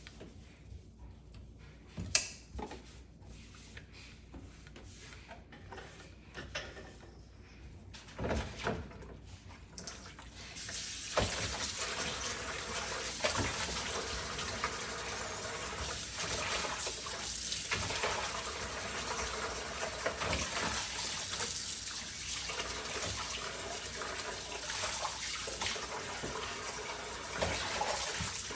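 A few sharp clicks and knocks, then about ten seconds in a kitchen tap is turned on and water runs steadily into the sink.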